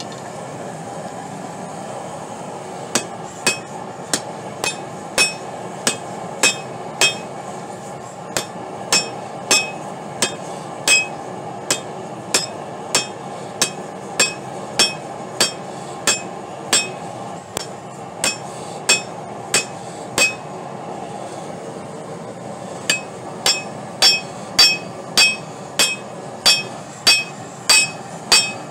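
Hand hammer striking hot steel rebar on a Doyle anvil: steady blows about two a second, each with a bright metallic ring. They come in three runs, starting a few seconds in, with a short pause about a third of the way through and a longer one about two-thirds through. A propane forge's burner runs steadily underneath.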